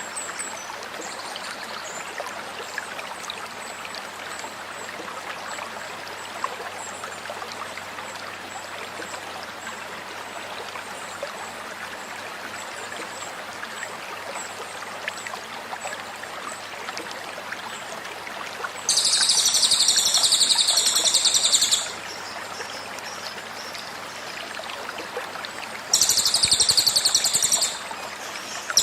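Stream water babbling steadily, with faint short high chirps over it. Two loud bursts of cililin 'tembakan' song break in, rapid high-pitched trilling phrases of about three seconds near two-thirds of the way in and about two seconds near the end.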